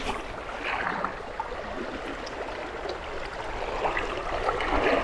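River current rushing steadily, a fast-flowing stream of water.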